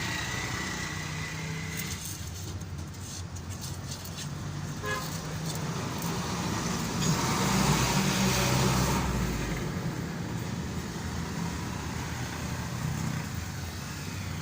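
Hino 4C four-cylinder diesel engine running, the engine the owner checks for damaged crankshaft bearings because of its bad sound. It gets louder for about two seconds starting about seven seconds in.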